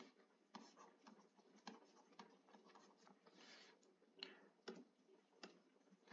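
Faint, scattered taps and short scratching of a stylus writing by hand on a touchscreen.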